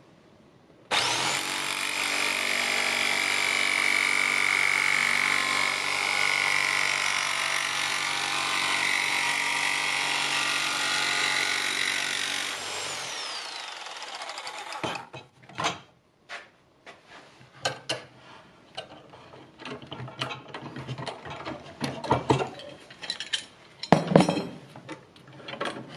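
Electric jigsaw fitted with a fine 24-teeth-per-inch metalwork blade, cutting acrylic sheet: it starts about a second in, runs steadily at full speed for about twelve seconds, then its whine falls away as the motor winds down. Scattered light knocks and clicks follow.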